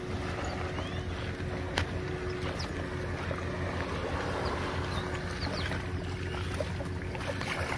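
Wind rumbling on the microphone over small waves lapping at the shoreline, with a faint steady hum underneath. One sharp click about two seconds in.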